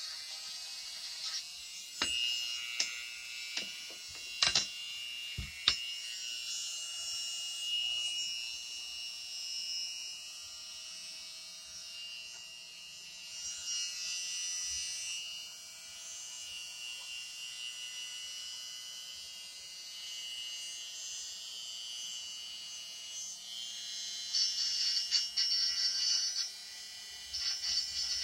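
Small high-speed rotary tool (Dremel) whirring with a wavering high pitch, as used to sand denture acrylic. A few sharp clicks come in the first few seconds, and a louder rattly stretch comes near the end.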